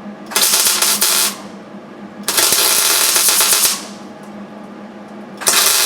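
MIG welder laying tack welds on a rusty sheet-metal floor patch: three crackling, sizzling bursts of about one to one and a half seconds each, starting and stopping sharply as the trigger is pulled and released, with the shielding gas now flowing. A steady low hum runs underneath.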